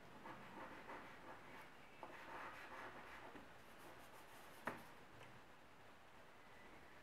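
Faint scratching of a white chalk stick drawn across grey drawing paper in short strokes, with one sharp tap about two-thirds of the way through.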